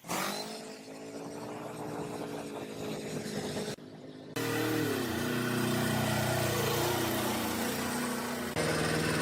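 Restored Iseki TX1210 tractor's small diesel engine running, heard in several short joined clips. About five seconds in, the engine note drops as it slows from a higher speed toward idle.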